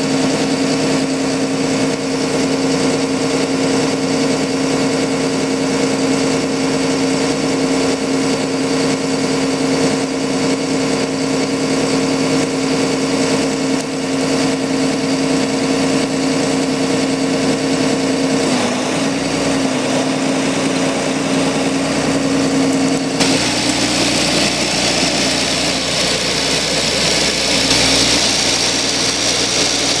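Blaw-Knox PF-4410 asphalt paver's diesel engine running steadily at idle with a low hum. About three-quarters of the way through, the sound changes: the hum gives way to a hissier running with a high whine on top.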